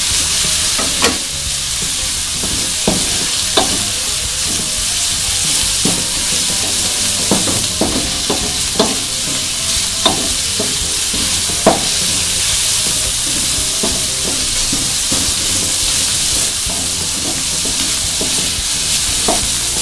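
Stir-frying in a metal wok: a steady sizzle of hot oil under chicken, chillies and wood ear mushrooms, with the spatula scraping and knocking against the wok at irregular intervals.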